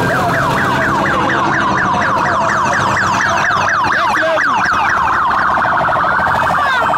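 Police escort sirens of a motorcade on a rapid yelp of falling sweeps, about four a second, switching near the end to a faster warble.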